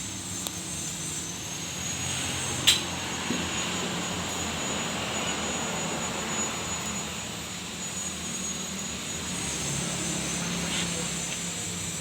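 Steady roaring rush of the burner flame under a corn-roasting machine, with one sharp click about two and a half seconds in.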